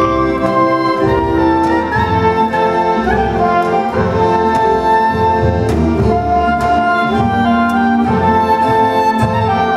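Live folk orchestra playing a Macedonian folk dance tune: a held melody over a steady accompaniment, loud and without pause.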